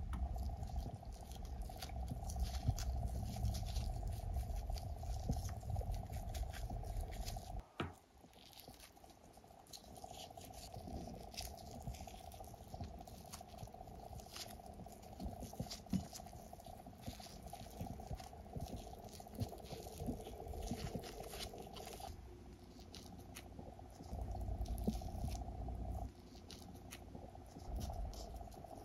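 Close-up handling sounds of gloved hands wrapping seasoned rice in soft, washed aged-kimchi cabbage leaves: small wet, sticky clicks and squishes of rice and cabbage, over a steady faint hum. The background changes abruptly a few times.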